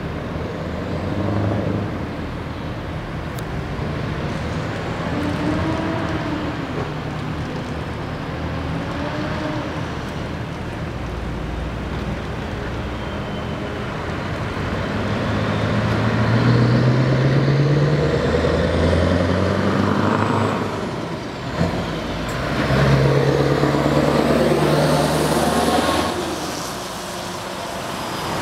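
Scania R 500 V8 diesel truck with open exhaust pipes pulling away and accelerating through its gears, the engine note rising in steps. There is a short hiss of air at a gear change about three quarters of the way in, and the sound fades near the end as the truck drives off.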